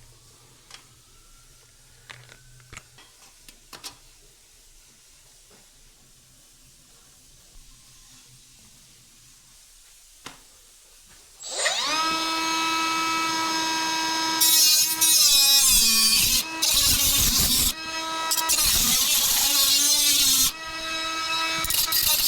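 A few light clicks and taps, then about halfway through a cordless power tool spins up with a steady whine. A few seconds later it bites into material with a harsh, grinding noise, its pitch wavering under load, stopping and starting again several times.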